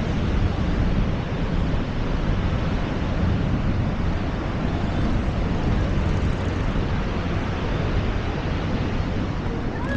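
Steady roar of Niagara Falls' falling water, with wind rumbling on the microphone.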